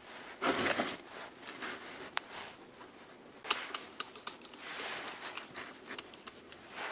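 Hand work on small metal parts during an electric motor restoration: a short scrape about half a second in, two sharp clicks near two and three and a half seconds, and a longer rubbing scrape around five seconds.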